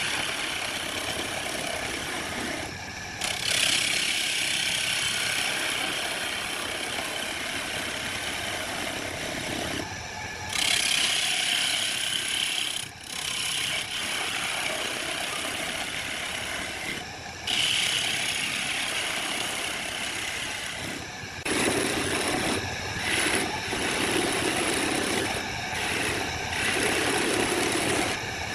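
A turning tool scraping the foot of a wooden vase spinning on a homemade motor-driven wood lathe: a steady cutting noise over the running lathe. The cut breaks off briefly four or five times as the tool lifts, and turns lower and choppier for the last several seconds.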